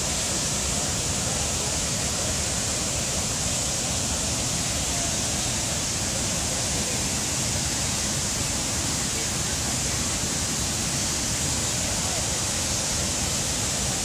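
Steady rushing of a wide waterfall in heavy flow, a constant even noise that does not change.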